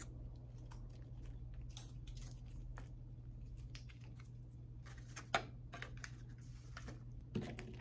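Faint crinkling and small clicks of ketchup packets being torn open and squeezed by hand, with one sharper click about five seconds in, over a steady low hum.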